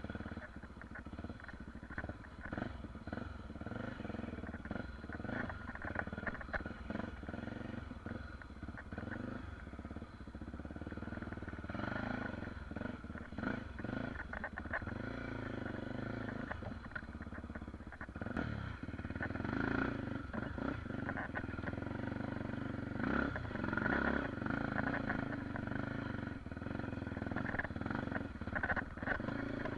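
Honda XR250 Tornado's single-cylinder four-stroke engine, kitted to 280cc with an aftermarket exhaust, running under changing throttle on a dirt trail, its revs rising and falling, with frequent knocks and rattles from the rough ground.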